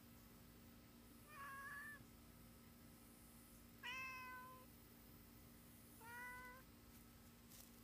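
Domestic tabby cat meowing three times, about two seconds apart, the middle meow the loudest.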